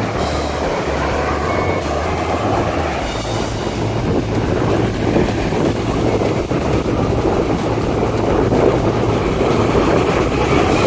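Ocean surf washing in at the shoreline, a steady loud rush, with wind buffeting the microphone.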